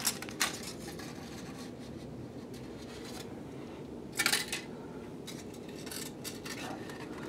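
Aluminium foil crinkling in short, sharp bursts as it is picked and peeled off a papier-mâché object with metal tweezers, with light metallic ticks; the loudest crinkle comes about four seconds in. A steady low hum lies underneath.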